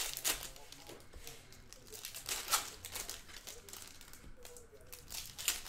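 Foil wrappers of 2020 Panini Contenders Football card packs crinkling as the packs are opened by hand and the cards pulled out: a run of sharp crackles, the loudest about two and a half seconds in.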